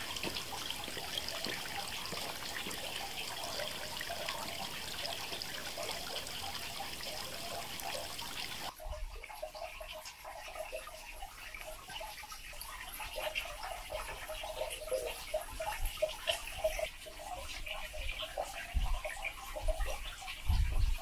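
Creek water running steadily. The sound changes abruptly about nine seconds in, where the low rumble drops away, and a few low bumps come near the end.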